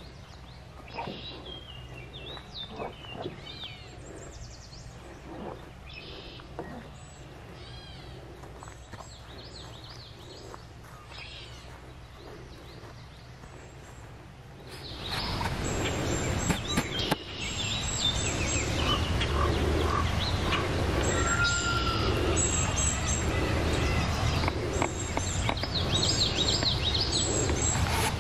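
Birds singing in spring woodland, with soft footsteps on a dirt trail. About halfway through, the steady rush of a flowing creek comes up loud and stays, and the birds go on singing over it.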